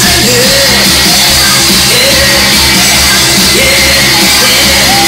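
Loud music with a pulsing bass beat and a singing voice over it.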